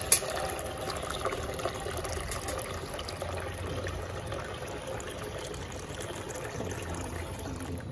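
Well water pouring in a steady stream from a tipped stainless-steel bucket into a plastic tub below, with one sharp click right at the start.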